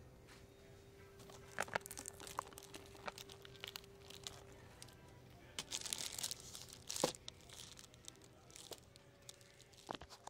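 Bar-soap packages, paper boxes and a plastic-wrapped bar, being handled: irregular crinkling and rustling with sharp clicks, loudest about seven seconds in.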